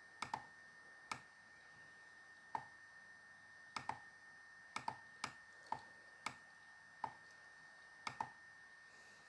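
Computer mouse clicking: about fourteen sharp, separate clicks at uneven intervals, several in quick pairs, over a faint steady high-pitched whine.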